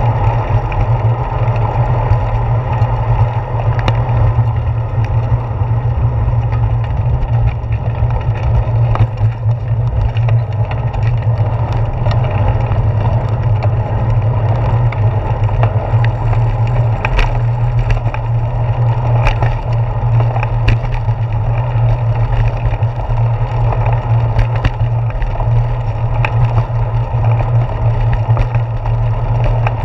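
Steady low wind rumble and rolling road noise of a bicycle ride, picked up by a handlebar-mounted GoPro Hero 4 in its housing, with occasional sharp clicks and knocks from bumps in the path.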